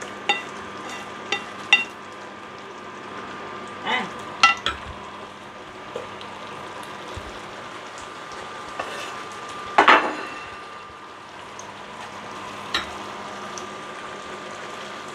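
Fish pieces in tomato sauce simmering and sizzling in a nonstick frying pan, stirred with a wooden spatula that knocks and scrapes against the pan several times. The loudest scrape comes about ten seconds in.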